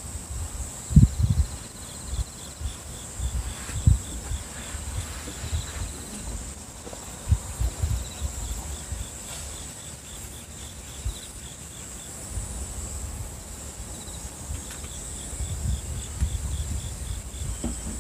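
Insects chirping: a steady high buzz with trains of quick, evenly repeated chirps that come and go, under occasional low thumps and rumbles.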